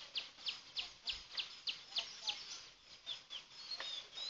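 A bird calling over and over in short, high notes that drop in pitch, about three a second, with a few other chirps mixed in.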